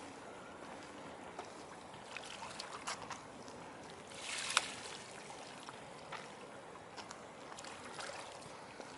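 Harbour water lapping and trickling against a concrete quay wall, with small scattered splashes and one brief louder splash of water about four and a half seconds in.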